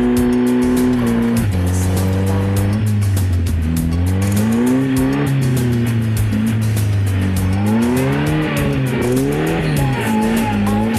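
Music with a steady beat over an off-road vehicle's engine, its revs rising and falling several times.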